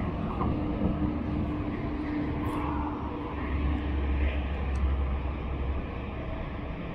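Steady rumble of road traffic, with a low hum held through the first half and a deeper rumble swelling past the middle.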